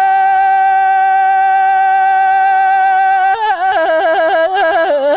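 A solo voice singing a Tibetan song: a long high note held steady for about three seconds, then quick ornamented turns stepping up and down in pitch.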